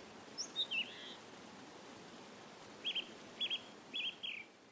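Small bird chirping over a faint steady outdoor hiss: a few high falling chirps about half a second in, then from about three seconds a run of short, quick high notes repeated roughly twice a second.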